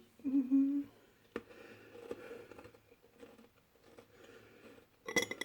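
A short hummed "mm" at the start, then a click and soft, faint chewing and munching of fries being eaten. A rapid rattling series starts right at the end.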